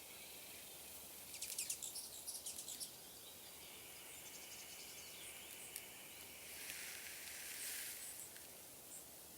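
Faint outdoor ambience with a bird's rapid, chattering trill about a second and a half in, then a soft rustle of noise near the end.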